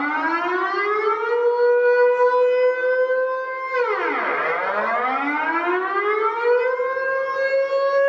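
Air-raid siren wailing: its pitch climbs and holds high, drops sharply about four seconds in, then climbs back up and holds again.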